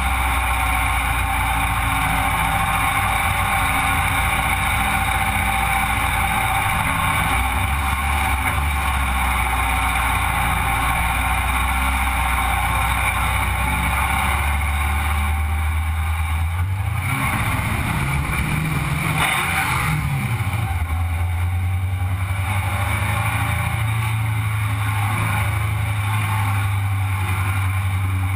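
Sandrail buggy's engine running steadily while driving on pavement, with wind and road noise in the open frame. Just past the middle the engine revs up briefly, then settles at a slightly higher pitch.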